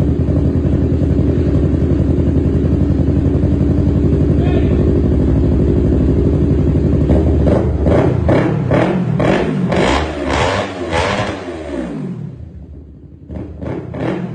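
Yamaha R3/MT-03 parallel-twin engine breathing through an Akrapovic GP line full-system exhaust, idling steadily. About seven seconds in it revs in a quick series of throttle blips for about five seconds, then settles back to idle, with two more short blips near the end.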